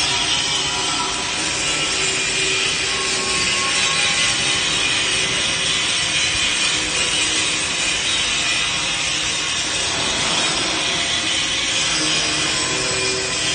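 Handheld angle grinders grinding steel, a continuous harsh grinding noise.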